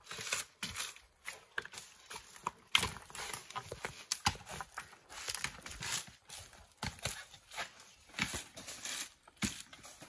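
Coconuts being dehusked by hand on an upright spike: irregular ripping and cracking of the fibrous husk, with knocks as each nut is driven onto the spike and pried apart.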